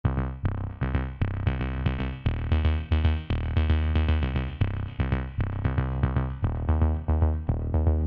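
Background music with a steady beat and a low bass line.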